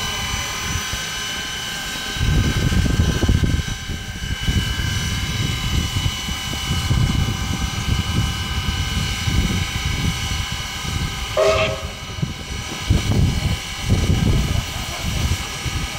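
Standing steam locomotive (the AC16 and PB15 double-header) giving off a steady hiss of escaping steam with several high whistling tones in it, over an irregular low rumble. A brief higher-pitched sound cuts in about eleven seconds in.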